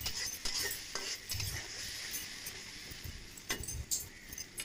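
Masala paste of onion paste and ground spices sizzling in oil in a metal karahi as a metal spatula stirs it, with a steady hiss and a few sharp clinks and scrapes of the spatula against the pan.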